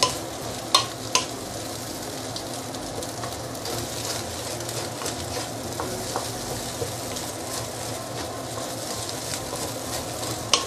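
Fried rice sizzling in a stainless steel wok as a wooden spatula stirs and turns it. A few sharp knocks of the spatula against the pan, twice about a second in and once near the end.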